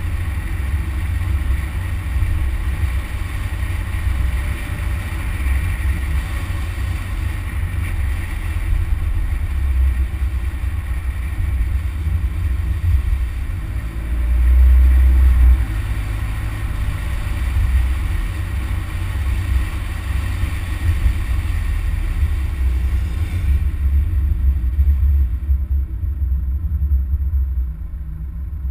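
Steady low rumble of a vehicle, swelling for a moment about halfway through.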